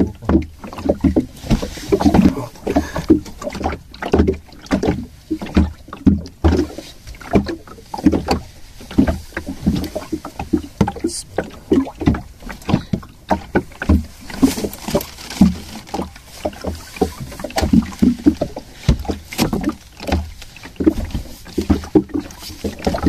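Water lapping and slapping against the hull of a small fishing boat, in irregular low thumps about once or twice a second.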